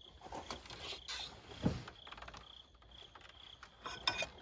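Faint clicks and scrapes of a fan clutch wrench working on the clutch fan's mounting nut at the water pump pulley, with one dull knock a little under two seconds in.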